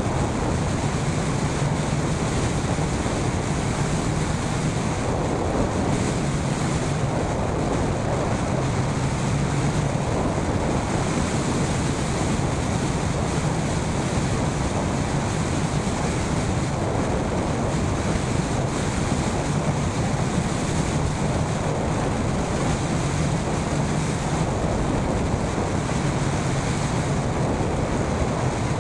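Steady, unbroken rush of airflow over the microphone of a hang glider in flight.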